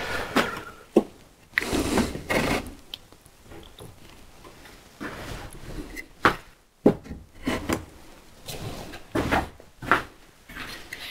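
Wooden workpieces knocked and rubbed against each other and the workbench as glued rails and legs are fitted together: irregular wooden knocks with short scraping sounds between them.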